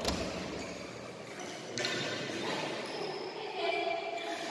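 Badminton play in a sports hall: a sharp racket hit on a shuttlecock right at the start, then shoes squeaking on the court floor as the players move.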